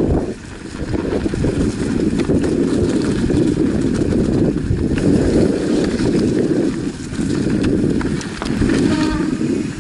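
Mountain bike riding down a rough dirt singletrack: steady rumble of tyres and wind on the microphone, with frequent knocks and rattles as the bike goes over bumps.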